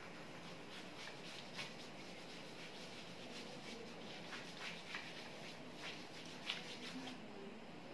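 A duster rubbing over a whiteboard chart, erasing marker writing: faint, repeated short wiping strokes.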